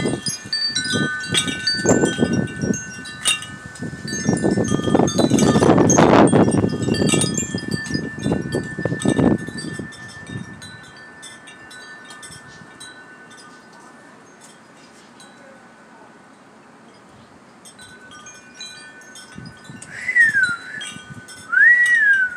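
Wind chimes ringing and tinkling in the wind, with a loud gust of wind over the first half that dies away. Near the end come two short high calls that rise and fall in pitch.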